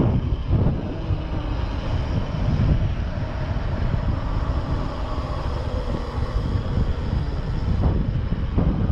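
Wind rushing and buffeting over the microphone, with tyre noise underneath, as a mountain bike is ridden on an asphalt road. It is a steady, rumbling noise without a clear pitch.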